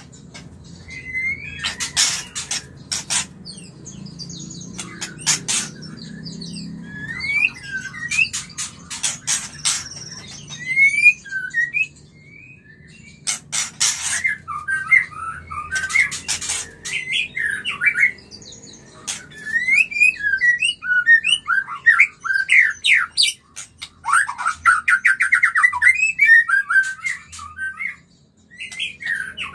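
White-rumped shama giving its breeding-season courtship song: bursts of short gliding whistled notes mixed with harsh, noisy calls, with a fast run of rapid repeated notes near the end.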